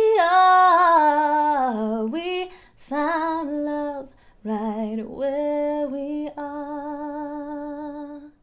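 A woman singing solo and unaccompanied, with vibrato. Several falling phrases lead into a long held final note that stops abruptly.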